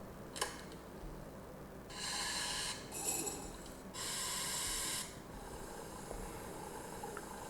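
Espresso machine sound effect playing back: three hissing bursts of steam, about a second each, close together, that sound like a blender. A short click comes just before them.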